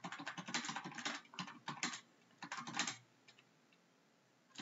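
Computer keyboard typing in quick runs of keystrokes, with a short break about two seconds in, then stopping about three seconds in.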